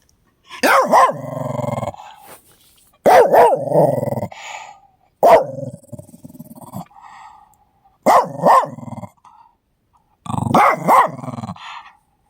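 An old dog giving five separate bark-growls, each a sharp bark running into a low growl, about two to three seconds apart: play-growling at a sock being waved at it.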